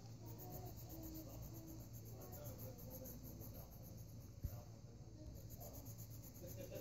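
Faint, quick scratching of a coloured pencil shading on sketchbook paper, with a single sharp click about four and a half seconds in.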